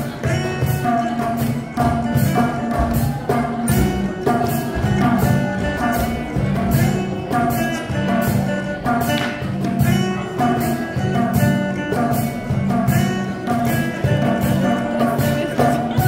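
Music with a steady percussive beat under a sustained melody.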